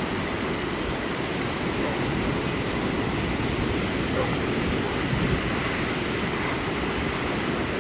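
Ocean surf rushing steadily on the beach, mixed with wind on the microphone.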